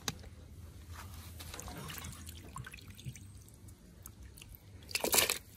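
Water dripping and splashing in a metal bowl as pieces of raw goat tripe and skin are lifted out of it by hand, with a brief louder splash near the end.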